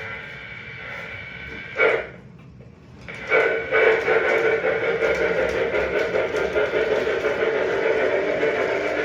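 O-scale model train locomotive powered up on the test track, giving a steady hum with several held tones. A short loud jolt about two seconds in, then it drops out for about a second and comes back louder and steady.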